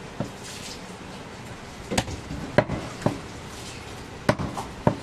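Butcher's cleaver chopping goat meat and bone: about six sharp, separate strikes at uneven intervals.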